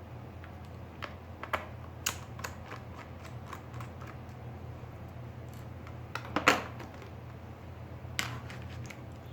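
Irregular clicks and light knocks of a laptop's plastic case and parts being handled, the loudest a short cluster about six and a half seconds in, over a steady low hum.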